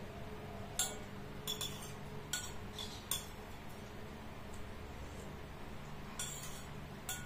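Metal spoon clinking and scraping against a ceramic bowl during eating, in about nine short clinks, some with a brief ring. Most fall in the first three seconds and a few come near the end.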